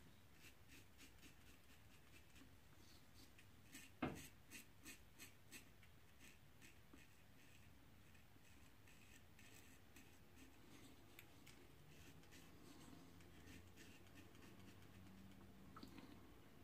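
Faint scraping of a double-edge safety razor drawn over lathered stubble in runs of short strokes, with one sharper knock about four seconds in.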